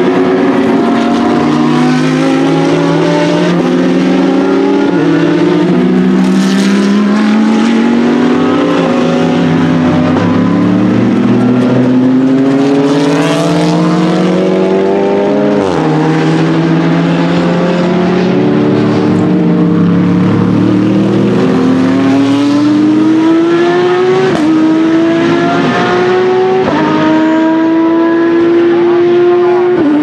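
Several GT3 and touring race cars accelerating hard, their engines overlapping and climbing in pitch, with a sudden drop at each upshift every couple of seconds.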